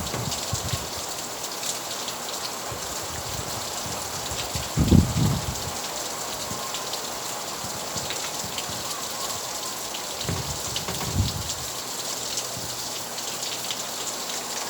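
Steady rain falling, an even hiss of many drops. A few low thumps cut through it, the loudest about five seconds in and two more near the end.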